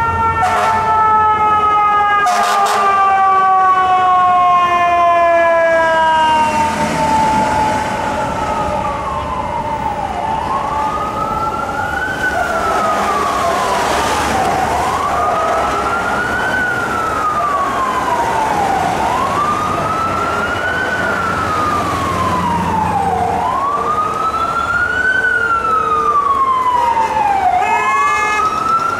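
Emergency vehicle sirens. For the first several seconds a mechanical siren winds down, its pitch falling slowly. From about seven seconds in, an electronic wail siren rises and falls in a regular cycle about every four seconds, over city traffic.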